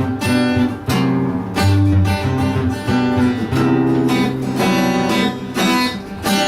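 Instrumental passage of a guitar-band song: two guitars strumming chords, changing chord about once a second.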